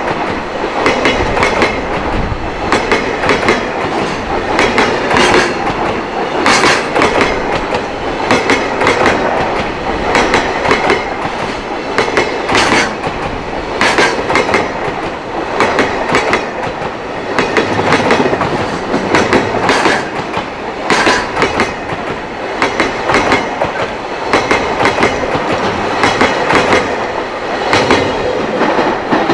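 A long freight train rolling past, its wagons' wheels clattering loudly over rail joints in a continuous, rapid clickety-clack.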